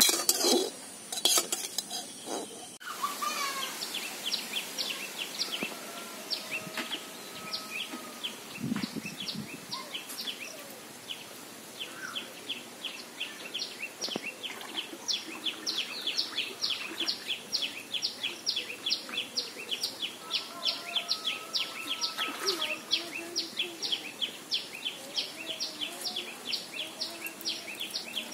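A plastic spatula clattering and scraping in a small metal wok for the first couple of seconds. Then, outdoors, a bird's short, high chirps repeat steadily, picking up to about three or four a second from about halfway.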